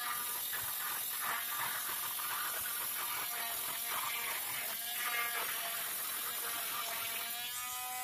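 Corded oscillating multi-tool buzzing steadily as its round saw blade cuts through a copper pipe. It rises slightly in pitch near the end.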